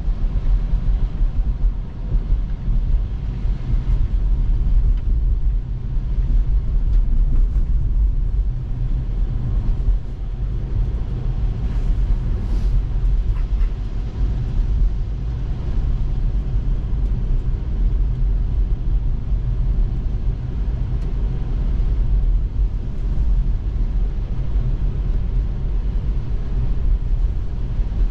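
Steady low road and tyre rumble inside the cabin of a Tesla electric car driving on snowy roads.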